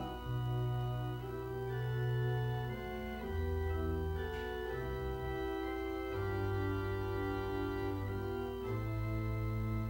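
Church organ playing slow, held chords over a bass line that moves to a new note every second or two.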